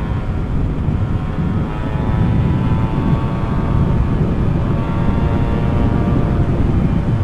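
Two-stroke motorcycle engine running hard under way, its pitch wavering a little, with heavy wind buffeting on the microphone.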